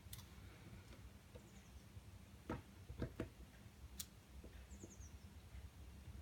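Faint small clicks and taps, a few seconds apart, from small iPhone 5 parts being handled and fitted back into place. A brief run of faint high chirps comes about five seconds in.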